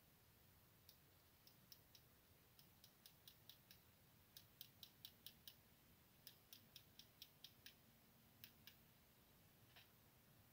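Faint, sharp clicking from a red-handled hand tool working the end of an electrical cable: several short runs of clicks at about five a second, with a few single clicks near the end.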